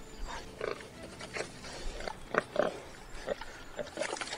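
Warthog giving several short distress cries, scattered through, as a lioness holds it down.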